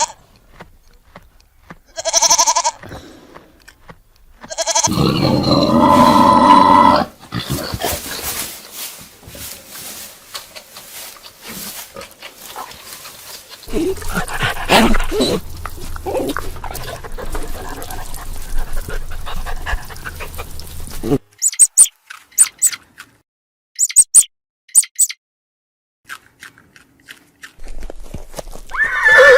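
A succession of different animals' calls, one clip after another, with a horse beginning to whinny near the end.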